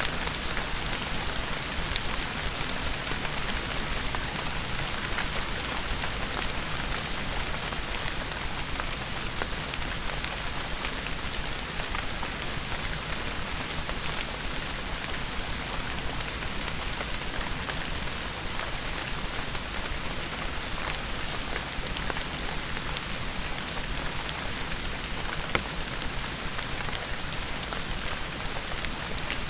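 Steady rain falling, a constant hiss with many scattered sharp drop ticks.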